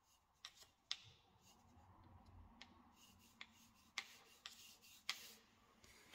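Faint scraping of a thin wooden stick drawn along a silicone-sealed tile joint, with several sharp little clicks at irregular intervals as it catches on the edge.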